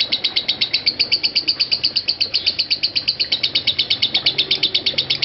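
Masked lovebird's ngekek: a long, unbroken chattering trill of rapid high notes, about ten a second, held without a pause. It is the non-stop 'konslet' style of lovebird song.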